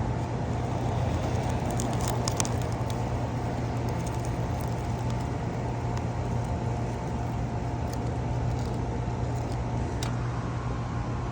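A motor running steadily with a low hum and faint higher steady tones, with scattered light ticks and rattles over it, from equipment working on a clogged dryer vent.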